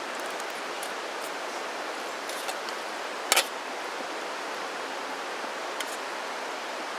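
Steady rushing background noise, with a few faint clicks and one short, louder clatter about three seconds in, from a fork being handled over a stainless cook pot.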